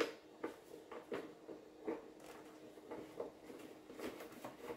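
Small plastic clicks and knocks as the air filter cover of a Kohler Courage 20 lawn tractor engine is pressed into place and its knob turned, irregular handling sounds every half second or so over a faint steady hum.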